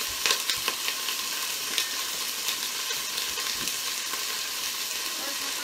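Raw chicken pieces sizzling in a hot pan just after going in: a steady, high hiss of frying, with a few sharp clicks mostly in the first second and a couple more later.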